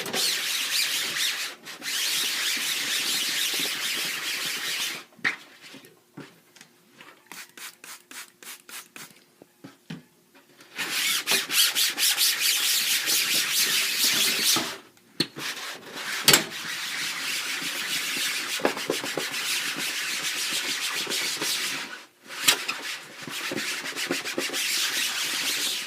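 Dampened cloth being rubbed hard over a screen-printing screen, wiping off ink softened by an ink degradent: a steady scrubbing rasp. About five seconds in it breaks into a run of short separate strokes, then goes back to steady scrubbing with two brief pauses.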